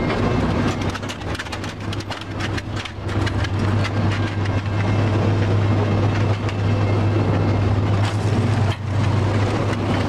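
Sawmill log-handling machinery running: a steady low hum with the clatter of a chain conveyor carrying logs, with sharp clicks and knocks in the first couple of seconds.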